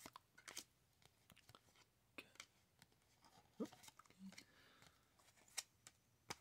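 Near silence with faint, scattered clicks and soft slaps of trading cards being handled and laid down one on another on a wooden table.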